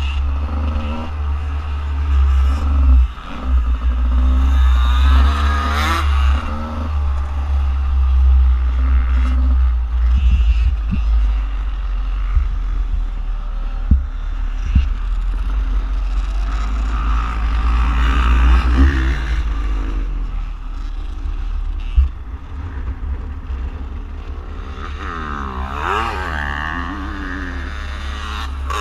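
2017 Beta 300RR's single-cylinder two-stroke engine being ridden, revving up and falling back repeatedly as the throttle is worked. A heavy low rumble runs under it, and there are a few sharp knocks.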